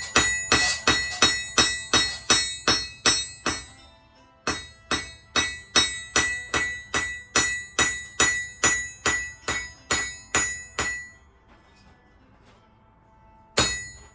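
Forging hammer striking steel on an anvil, about three blows a second, each with a bright ring. A run of blows, a short pause, a longer run, then one last blow near the end.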